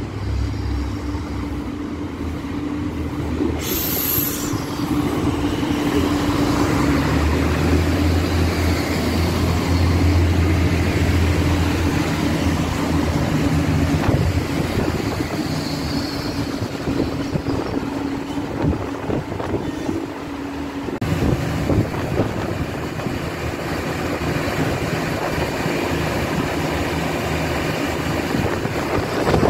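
Iarnród Éireann diesel commuter train running into the station along the platform, its engines giving a steady low drone and hum. A brief hiss comes about four seconds in.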